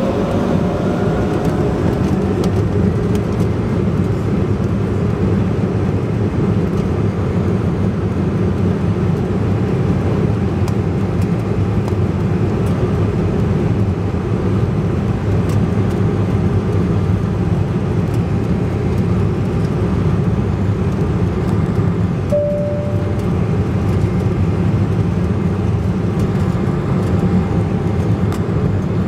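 Cabin noise of an Embraer E-190 airliner on its takeoff roll: its two GE CF34 turbofans at takeoff power make a loud, steady low rumble. A faint whine rises in the first couple of seconds as the engines spool up. A short tone sounds about 22 seconds in.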